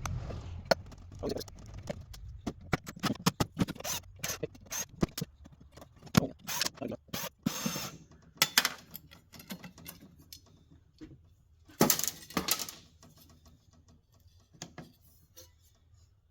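Irregular clicks, clinks and knocks of small metal parts and tools being handled as a radar display's power supply box is taken apart, busiest in the first half, with a louder clatter about twelve seconds in.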